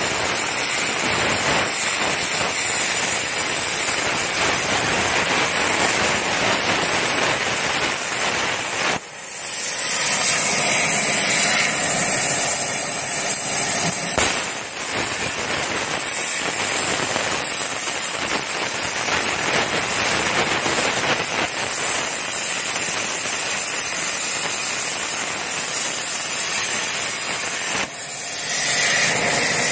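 CNC plasma cutter torch cutting steel plate: a loud, steady crackling hiss of the plasma arc and its air. It breaks off briefly about nine seconds in, again about fourteen seconds in, and near the end, between cuts.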